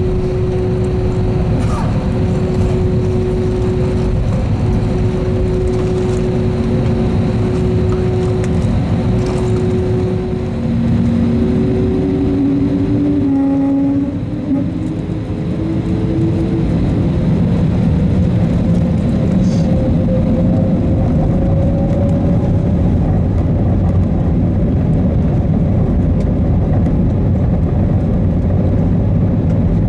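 Airbus A320neo's engines heard from a cabin window seat over the wing as the jet taxis. A steady hum is broken by a tone that comes and goes, and a little past halfway a rising whine builds as the engines spool up, then settles into a louder steady rush.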